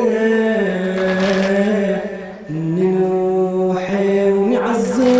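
A radood, a male lament reciter, chanting a Muharram latmiya without instruments, drawing out long held notes in two phrases with a short break about two seconds in.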